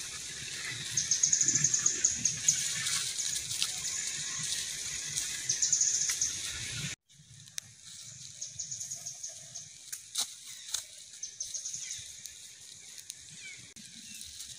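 Outdoor natural ambience: a steady high hiss with repeated fast, high-pitched trills and some low rumble. The sound drops out abruptly about seven seconds in, then resumes quieter with a few faint clicks.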